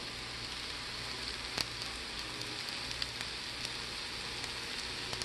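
Butter sizzling steadily in a frying pan around a thick oatmeal pancake, with a few sharp pops spitting from the hot fat.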